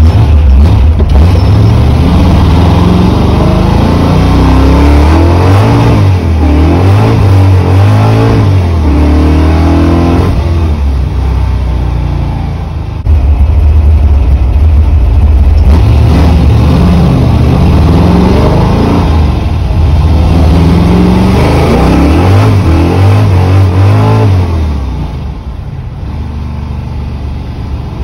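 Muscle car's engine heard from inside the cabin, running loud and accelerating, its pitch climbing and falling back several times as it pulls through the gears. The level dips briefly a little before halfway, then eases off near the end.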